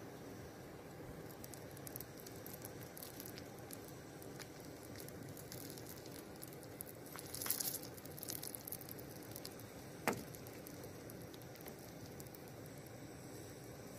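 Melted tree sap being scraped and dripped from a small metal pot onto a leaking seam in a canoe hull, to seal the leak: faint crackles and soft ticks, a brief scrape about halfway through, and one sharp tick a couple of seconds later.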